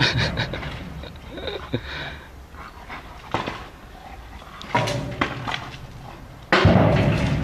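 Metal gate knocking and rattling as a German shepherd tugs at the rope tied to it, in several separate clanks with a louder one near the end.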